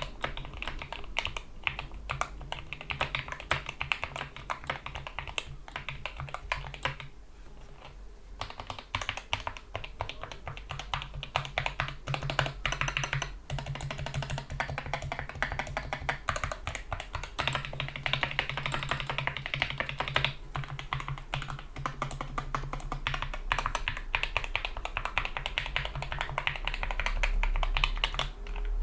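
Typing on a GK61 mechanical keyboard with lubed Gateron Yellow optical linear switches, PBT keycaps and O-ring dampeners: a steady stream of key clicks and bottom-outs, thinning briefly about seven seconds in.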